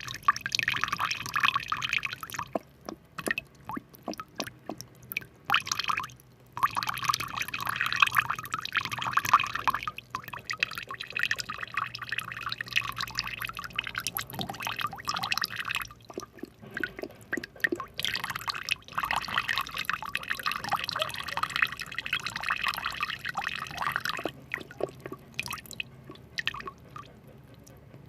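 Water pouring and dripping in several spells a few seconds long, with scattered single drips between them.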